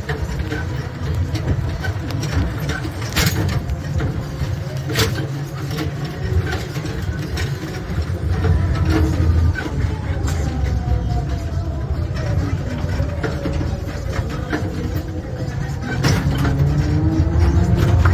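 A motor vehicle's engine running with a heavy low rumble, its pitch dipping and then rising as it changes speed, with scattered clicks and knocks.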